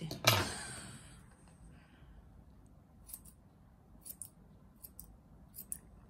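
Grooming scissors snipping a Bichon Frise's curly head fur: short crisp snips, often two at a time, starting about three seconds in. A single loud knock with a short fading tail comes just after the start.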